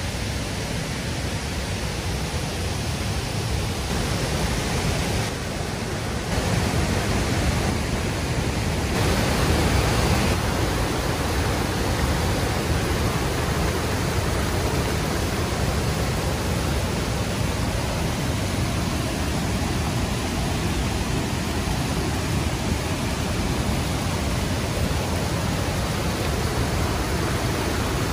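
Canim River white water rushing over rock ledges above Canim Falls: a steady, loud rush of water with no break, swelling slightly between about six and ten seconds in.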